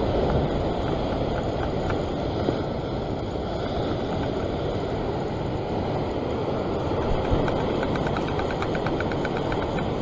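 Wind buffeting the microphone over breaking surf, with a faint rapid clicking from a spinning reel's drag giving line to a hooked fish, most regular in the last few seconds.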